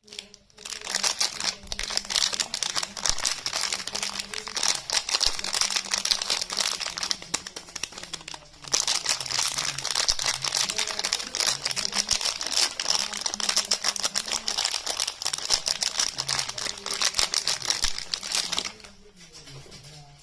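Soap packaging being unwrapped by hand: continuous crinkling and crackling of the wrapper, with a brief pause about a third of the way in, stopping shortly before the end.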